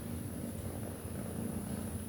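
Nursing mother cat purring: a steady low rumble.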